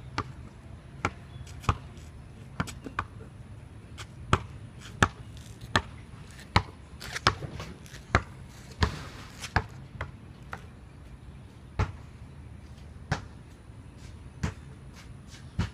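Basketball bouncing on a concrete court: a series of sharp thumps, under a second apart at first and spacing out toward the end.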